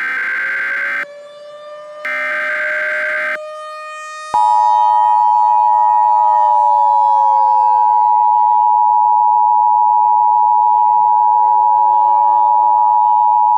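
Emergency Alert System header: two short bursts of screeching digital data tones. About four seconds in, the loud two-tone EAS attention signal starts and holds steady, marking the start of an emergency alert. Underneath, a civil defense siren wails, its pitch slowly rising and falling.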